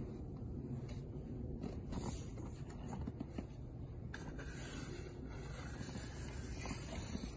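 Long-handled snow brush sweeping heavy snow off a car's roof and windows, soft brushing and swishing strokes with snow sliding off, over a steady low rumble.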